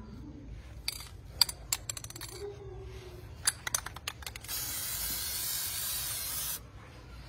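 Aerosol spray paint can: two short runs of sharp rattling clicks, then one steady spray hiss lasting about two seconds, starting past the middle.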